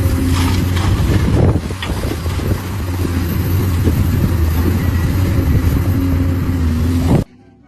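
An engine running steadily, loud and close, with a lot of noise over its low hum; it cuts off abruptly near the end.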